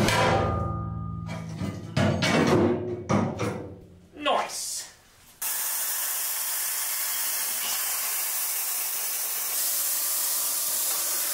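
Plasma cutter cutting aluminium sheet: a steady hiss that starts abruptly about five seconds in and holds evenly. Music plays before it.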